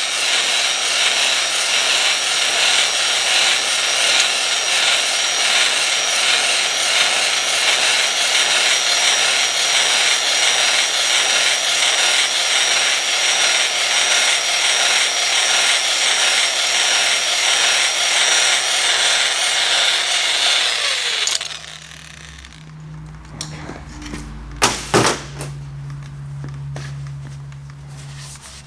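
Electric drill spinning a stone cylinder hone in a bore of a Jeep 4.0 inline-six block: a steady whir with the rasp of the stones on the cylinder wall as it cross-hatches the bore for new piston rings. It cuts off suddenly about 21 seconds in. A low hum follows, with two sharp knocks a few seconds later.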